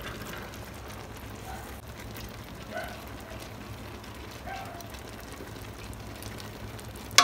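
Faint sounds of a spoon spreading cooked rice over gravy in a metal pot, over a steady low hum; a single sharp click near the end.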